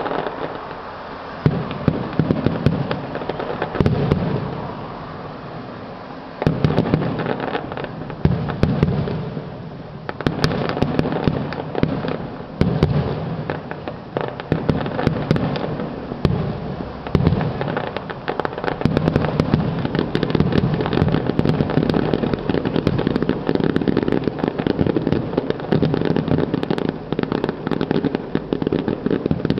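Fireworks display: aerial shells bursting in a string of sharp bangs and crackles, growing into a dense, near-continuous crackling barrage in the last third.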